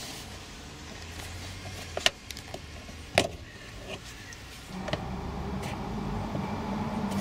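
Plastic trim tool prying a hard plastic latch bezel out of a car's rear side trim panel, with sharp plastic clicks and two louder snaps about two and three seconds in as its clips let go. A steady low hum starts about five seconds in.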